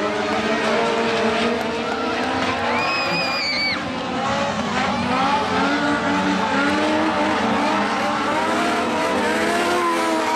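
Several Legends race cars with Yamaha motorcycle engines running together on a dirt oval, their revs rising and falling as they lap past. A brief high squeal sounds about three seconds in.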